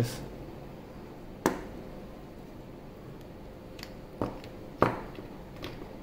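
A few short, sharp knocks and taps as small aluminium flashlights are handled and set down on a mat: one about a second and a half in, then three more close together near the end.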